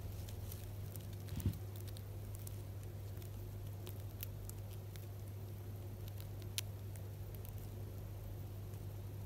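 Djangarian hamster gnawing a crunchy Jagariko potato snack stick: a scatter of small, crisp crunching clicks over a steady low hum, with one low thump about a second and a half in.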